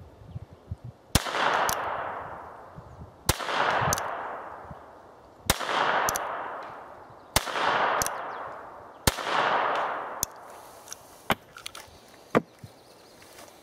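.22 North American Arms mini revolver firing five shots about two seconds apart, each crack trailed by an echo that dies away over about a second. A few small clicks near the end.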